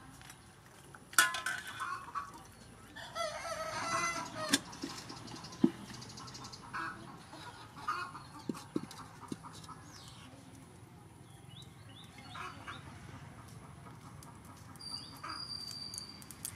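Chickens clucking, with a rooster crowing once about three seconds in. A few light metal knocks follow as a wok is set on the stove.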